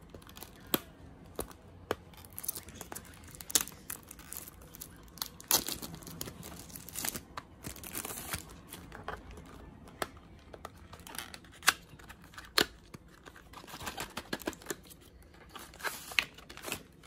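Product packaging being opened by hand: tearing and crinkling of wrapping, with many sharp clicks and taps as the box and its parts are handled, busiest around the middle.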